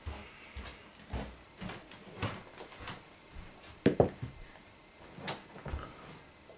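Teaware being handled on a table: a run of soft thumps and knocks, then a loud double knock about four seconds in as a white porcelain cup is set down, and a sharp clink a little after five seconds.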